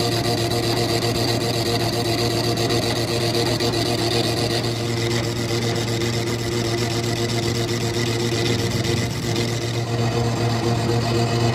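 Metal lathe running steadily, its motor and headstock gears humming, with a scraping rasp from the cutting tool turning down the spinning iron bar. The scraping is strongest in the first half.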